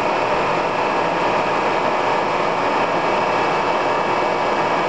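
Lagun FTV-2S vertical mill running under its Servo II CNC control, the spindle turning at 2100 RPM while the servo-driven table feeds in a straight line: a steady mechanical whir with an even hum.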